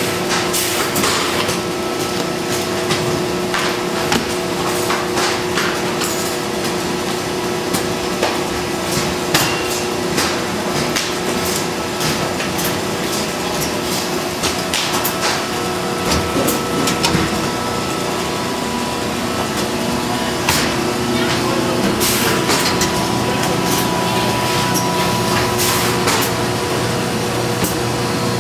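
Hydraulic building-in press for book blocks running in a bindery, a steady machine hum with several constant tones, broken by frequent sharp knocks and clacks as books are handled and the press works.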